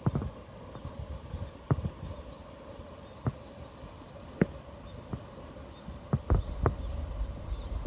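Steady insect drone, with a quick run of short bird-like chirps a little past two seconds in and scattered sharp knocks; a low rumble builds near the end.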